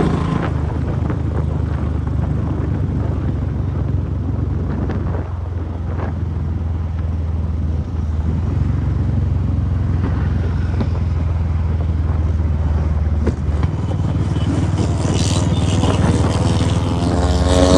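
Royal Enfield Bullet 500's single-cylinder four-stroke engine running steadily under way at highway speed, with a deep exhaust note.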